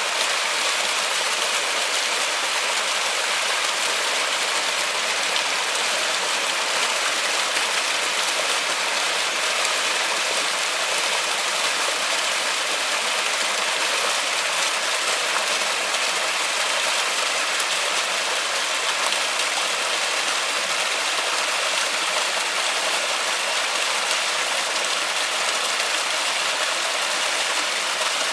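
Rain falling steadily in a forest: an even, hissing wash of drops with no single sound standing out.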